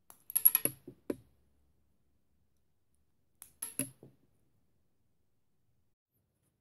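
Sharp plastic clicks and scraping as a utility-knife blade pries the centre cap off a plastic fidget spinner's bearing. The sounds come in two short bursts, the first about a second long and the second about three seconds later.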